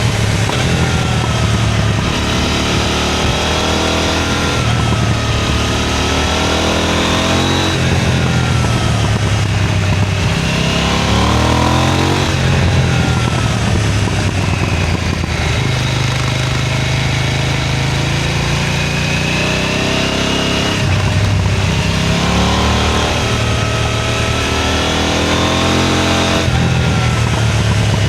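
KTM 990 Duke's parallel-twin engine and exhaust under hard acceleration, revs climbing and dropping back again and again as it shifts up through the gears.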